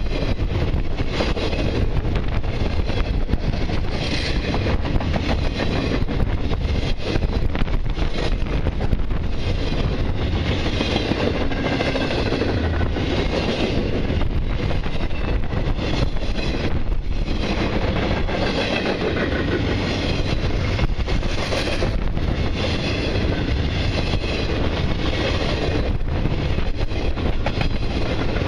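Long intermodal freight train rolling past, a steady rumble and rush of wheels on rail with rapid clicking as the cars go over the rail joints.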